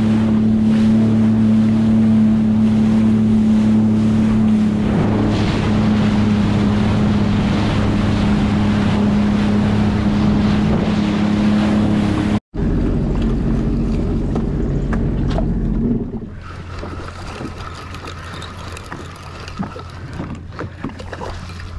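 Sea-Doo Fish Pro jet ski engine running steadily at trolling speed, with wind and water rushing past. About sixteen seconds in, the engine drops to a much quieter low hum as a fish is hooked, leaving water sounds and a few small clicks.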